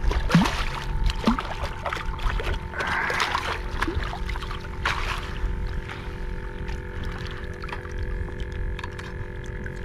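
A hooked redfish thrashing and splashing at the water's surface beside a kayak: a string of sharp splashes over the first five seconds or so, then calmer water noise as it is netted. Wind rumbles on the microphone.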